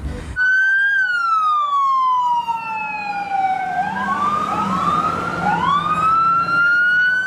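Ambulance siren wailing. The pitch falls slowly over about three seconds, then climbs back up in several overlapping rising sweeps.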